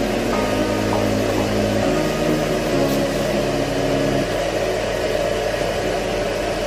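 Steady machinery drone with a constant noise haze and a few low held tones that shift pitch a couple of times.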